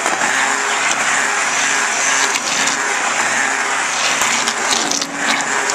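A loud, steady mechanical noise of a motor running without a break.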